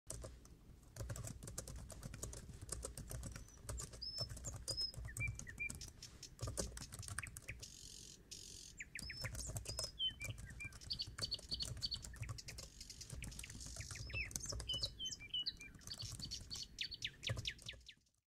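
Fast, irregular tapping on a laptop keyboard, with birds chirping in short high calls over it; both stop abruptly near the end.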